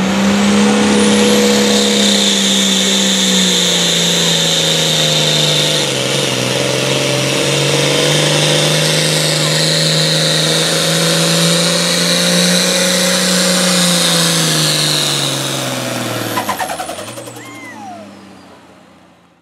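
Diesel pickup at full throttle pulling a sled, a loud engine note with a high whine over it, sagging briefly about six seconds in and climbing again. Near the end the engine drops off as the pull ends and the sound fades out.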